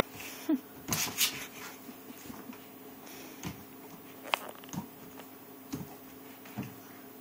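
Irregular thumps and taps from a dog moving about and playing on a rug, with a brief squeak about half a second in, over a steady low hum.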